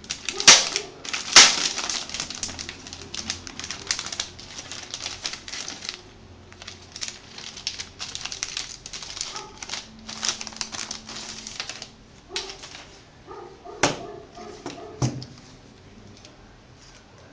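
Keys of an Apple keyboard being pressed: rapid clicking typing for the first few seconds, then sparser key presses, with two sharper knocks near the end.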